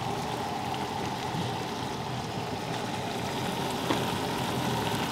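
Shrimp and rice sizzling in a frying pan on a propane camp stove: a steady hiss, with one light tap about four seconds in.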